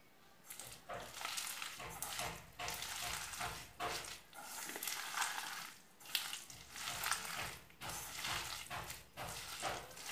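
Hands squeezing and kneading chopped Malabar spinach leaves into a thick gram-flour batter in a steel bowl: wet squelching and rustling in uneven bursts with short pauses.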